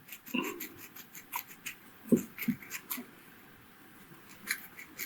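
Irregular scratching and small clicks of a fine drill bit boring into a tiger nut, with a few soft knocks as it is handled.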